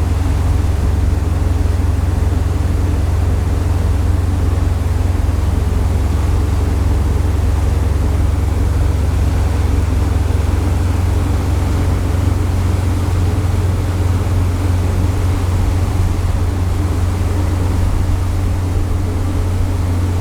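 A passenger-cargo ship's engines running steadily underway, a deep, unchanging low drone with a steady rushing noise over it.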